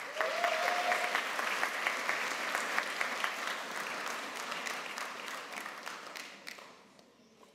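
Audience applauding, a dense patter of many hands clapping that starts at once, thins out after about five seconds and dies away near the end.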